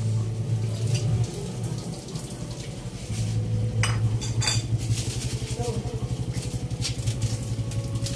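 Pot of beef broth at a rolling boil: a steady low rumble of bubbling with fine crackling, and two sharp clicks about four seconds in.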